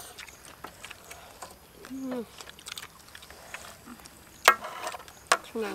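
Communal eating: small clicks of chopsticks and a ladle against ceramic bowls and a steel wok, with a short hummed vocal sound about two seconds in. Two sharp clinks stand out near the end, the second followed by a brief voice.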